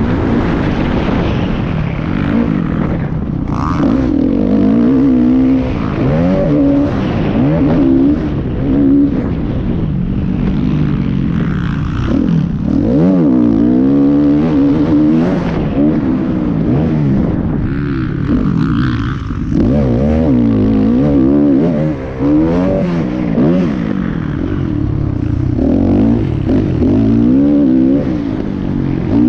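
Motocross dirt bike engine heard on board, revving hard: the pitch climbs and drops again and again as the rider shifts gears and rolls off and back on the throttle, with a brief dip in level about 22 seconds in.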